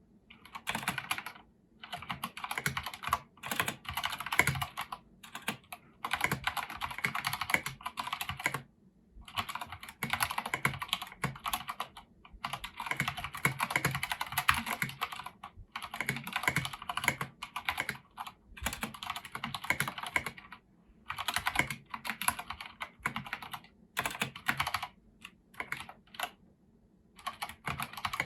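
Filco Majestouch Convertible 2 mechanical keyboard with Cherry MX switches and Domi keycaps being typed on: fast runs of key clacks lasting a few seconds each, broken by brief pauses.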